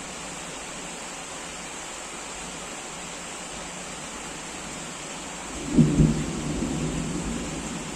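Steady heavy rain, then about three-quarters of the way through a sudden thunderclap that cracks and rolls on as a low rumble.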